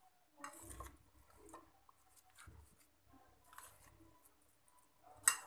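Fork turning raw mutton with sliced onions, oil and spice powders on a plate: faint, irregular wet squishing and scraping, with one sharper scrape of the fork near the end.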